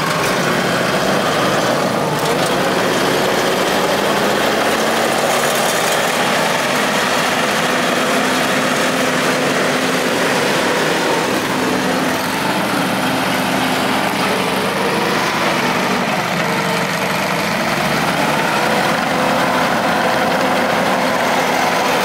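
Kubota SVL75 compact track loader's diesel engine running steadily as the machine drives about on its rubber tracks.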